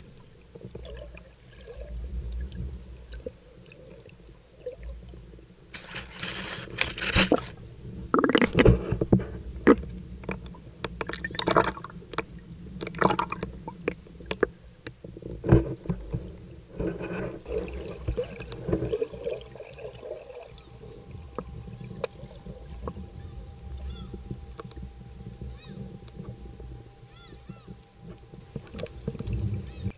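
Underwater sound in a seawater seal pool: a low steady rumble of water, broken by bursts of bubbling, knocks and clicks as seals come right up to the camera, mostly in the first half. A faint steady hum enters a little past halfway.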